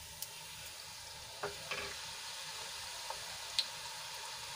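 Thick gram-flour sev sizzling steadily as it deep-fries in hot oil in a metal kadai. A few short, sharp clinks come from a perforated metal slotted spoon against the pan as the coil is turned over partway through frying.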